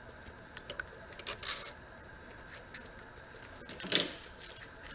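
Light handling noises of a small machined metal part being turned over in the hand: a few small clicks and rustles, with one louder click about four seconds in.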